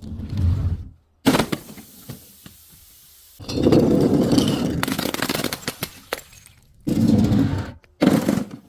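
Objects being crushed: dense crunching with many sharp cracks and snaps. It comes in several short stretches broken by abrupt cuts, with a single sharp crack about a second in.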